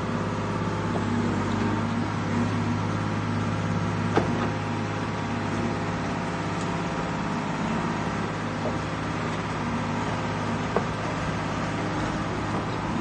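A 125B tracked excavator's diesel engine running steadily under work while the boom and bucket move. There are two short sharp knocks, one about a third of the way in and another near the end.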